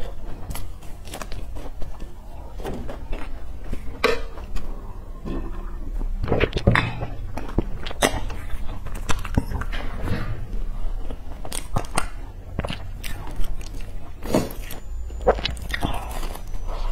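Close-miked biting and chewing of flaky sesame-topped pastry cakes, with many sharp crackles from the flaky crust as it breaks and is pulled apart.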